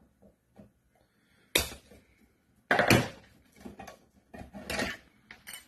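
Plastic fan blades of a graphics-card cooling fan being cut off with cutting pliers: a sudden sharp crack about a second and a half in, a louder, longer crack about a second later, then a run of smaller clattering knocks near the end.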